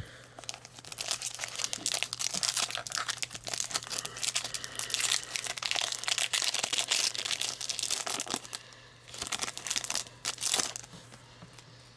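Foil wrapper of a Pokémon trading-card booster pack crinkling and tearing as it is worked open by hand: a long run of crackling, a short pause about eight and a half seconds in, then one more burst.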